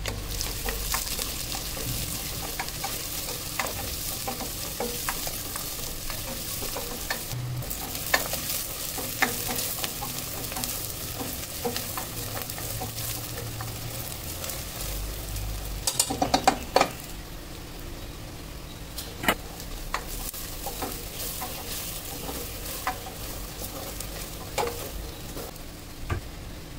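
Chopped onions frying in oil in a stainless steel pressure cooker, sizzling steadily while a spatula stirs and scrapes them, with scattered taps of the spatula against the pot. About two-thirds through there is a brief burst of clatter, and the sizzle is softer after it.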